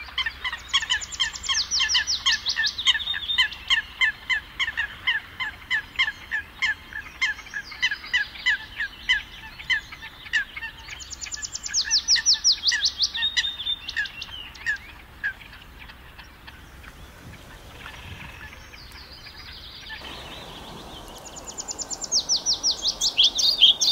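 Birds singing in a forest. One bird repeats a short, harsh note about twice a second for the first fifteen seconds, while another sings a rapid high trill of falling notes three times: near the start, near the middle and at the end.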